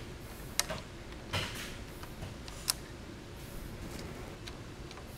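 A few scattered sharp metallic clicks and taps from a motorcycle's rearset bracket and its freshly loosened bolts being handled by hand, over a faint steady room hum.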